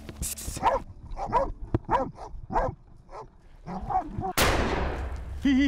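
Pig dogs barking over and over at a bailed wild boar, then a single rifle shot about four seconds in that rings out and fades over about a second.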